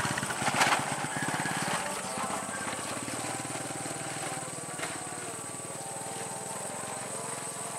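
KRL Commuter Line electric train approaching slowly, its running gear and motors giving a rapid, even pulsing that eases off over the first two seconds and then runs on steadily.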